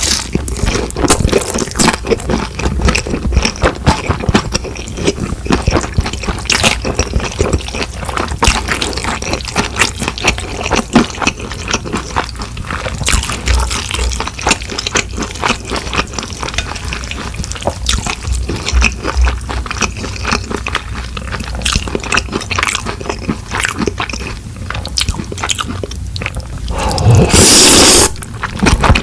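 Close-miked eating sounds: chewing with wet, squishy mouth noises and crunches. A loud, noisy rush lasting about a second comes near the end.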